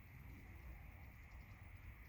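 Near silence: faint outdoor ambience with a low, steady rumble of wind on the microphone.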